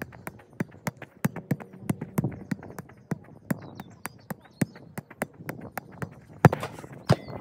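A football being juggled on the feet: a quick, steady run of sharp taps as the boot strikes the ball, about three a second, with one louder thump near the end.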